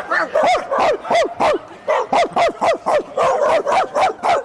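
A rapid, unbroken run of high, yapping dog-like barks, about four a second, each a short call that drops in pitch.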